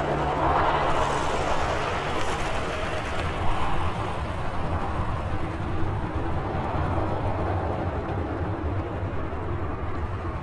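Boeing 737-800's CFM56 jet engines running: a steady rushing noise over a low hum that slowly fades.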